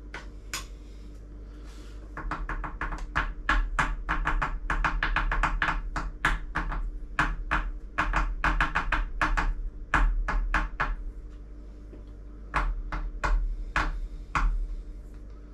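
A shotgun shell being tapped rapidly and sharply on a wooden tabletop, about five taps a second, to settle starch down among the shot pellets. The tapping pauses briefly, then comes back for a handful more taps near the end.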